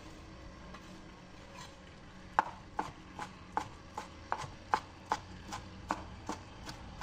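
Kitchen knife chopping soft roasted green pepper on a wooden cutting board: after a couple of quiet seconds, a steady run of sharp knife taps on the board, about two to three a second.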